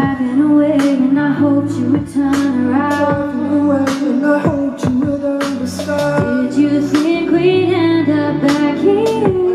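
Live pop song: a woman and a man sing together over a steady beat and a held bass line.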